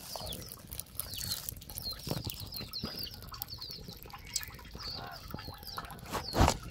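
Backyard hens clucking and small birds chirping, with light clicks and crackles from the wood fire. A couple of louder knocks come near the end.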